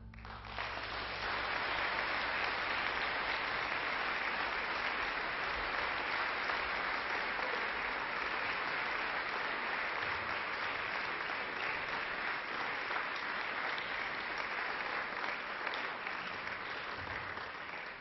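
Audience applause, breaking out right at the start as the music stops and holding steady throughout.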